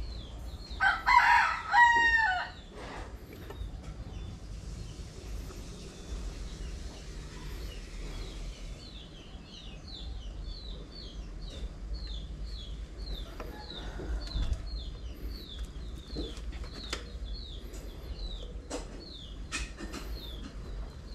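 A rooster crows once, loudly, about a second in. After that a small bird chirps steadily, short high calls about two a second.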